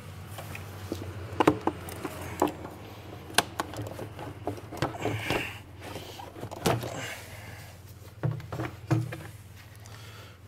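A plastic air intake duct being worked loose and lifted off by hand, with scattered plastic clicks, knocks and rustling. A steady low hum runs underneath.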